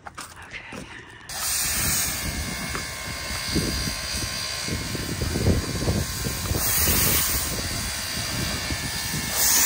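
A few footsteps on gravel for about a second, then a steam locomotive standing in the station with a loud, steady hiss of steam over an uneven low rumble. The hiss swells twice, near the middle and again near the end.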